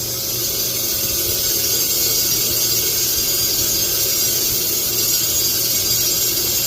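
Handheld power tool running steadily against the steel exhaust pipe, cleaning it down to bare metal so the welder's ground clamp makes a good contact.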